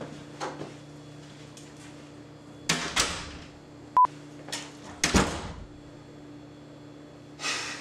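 Knocks on a door: two sharp raps about three seconds in and two more about two seconds later, with a short high beep between them.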